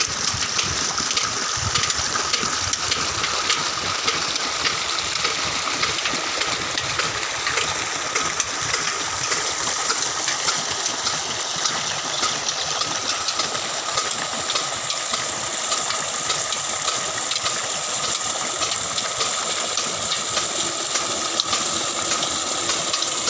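Water gushing steadily from a tube-well outlet pipe into a concrete basin, with the old diesel engine that drives the pump running underneath.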